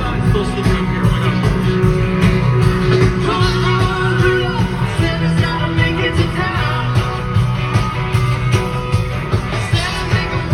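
Rock-and-roll music with a singer and guitar over a steady bass.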